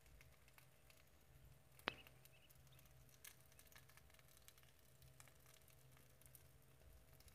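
Faint crackling of an open fire: scattered small ticks and one sharp pop about two seconds in, over a low steady hum, all close to silence.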